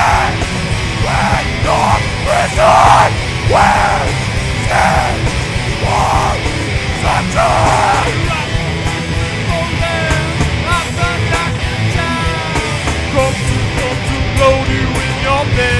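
Hard rock band playing live, with drums and distorted bass and guitar under shouted vocal phrases in the first half. The singing then stops and an instrumental passage with a bending lead line follows.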